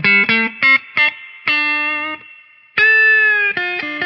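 Electric guitar playing a single-note lick in a clean tone with a touch of grit, through a Harley Benton American Sound amp-simulator pedal and a Mooer Yellow Comp compressor into a Peavey Valve King tube amp. A quick run of notes gives way to two held notes, the second bending slightly down, then more quick notes.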